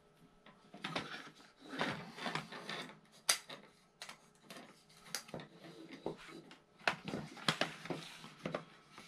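Handling noise: rustling and scraping as a rubber band is worked around a small block of balsa wood, with a sharp click about three seconds in. Then a run of light clicks and knocks as the plastic Hot Wheels track and its start gate are picked up and handled.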